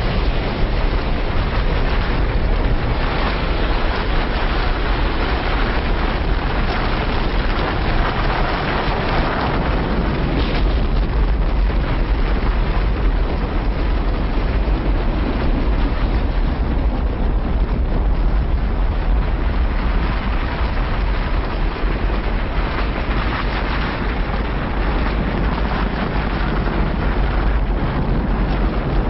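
Rocket launch noise: a loud, steady rumble, deep and noisy, that holds without a break.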